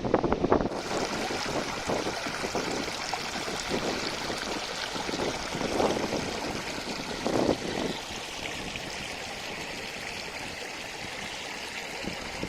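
Athirappilly waterfall's falling water, a steady rush that sets in strongly just under a second in, with a couple of brief louder sounds in the middle.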